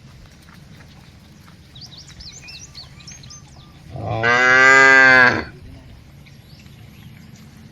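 A cow mooing once: one loud, drawn-out call lasting about a second and a half, dropping in pitch as it ends. Small birds chirp faintly a couple of seconds before it.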